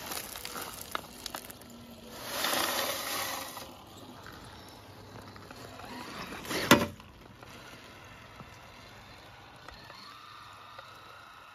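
Soil sliding out of a tipped RC dump truck bed and pattering onto gravel, with a rush of pouring dirt lasting about a second and a half. A single sharp knock comes a little past the middle. Near the end the truck's small electric motor and gears whine faintly as it drives off.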